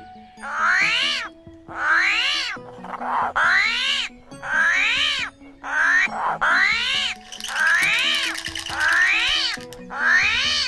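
A string of about ten short, high animal calls, each rising then falling in pitch, over light background music. The calls are played as an armadillo's sound.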